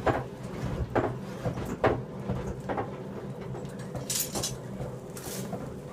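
Blacksmith's hammer striking metal on an anvil, four blows about a second apart, over a steady low hum. Two short hissing noises follow near the end.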